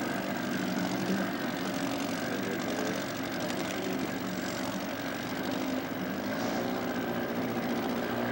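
The 2002 Penn Yan Swift's boat engine running at an even pitch, with a steady hiss over it.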